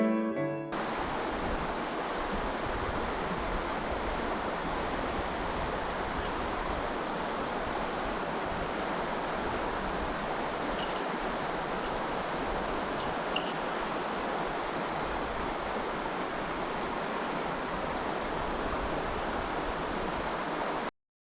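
Steady, even rush of a mountain stream's flowing water. It cuts off abruptly near the end.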